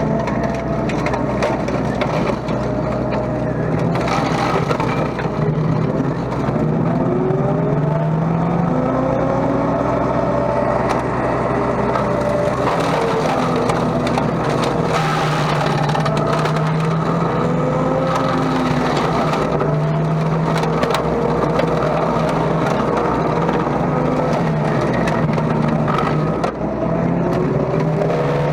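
Mini excavator running a home-built chain slasher through thick brush and gorse: steady engine and hydraulic drone whose pitch rises and falls as the cutter loads, over constant crackling and splintering of woody stems.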